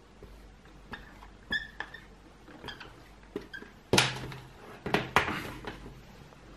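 Dry-erase marker squeaking and tapping on a small whiteboard as someone writes and draws, with a few sharp knocks, the loudest about four seconds in.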